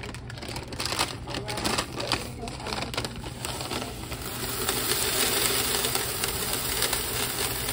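Reese's Pieces poured from their plastic bag into a candy vending machine's plastic canister. The bag crinkles and the candies clatter in irregular clicks, then from about halfway through they pour in a steady rattling rush.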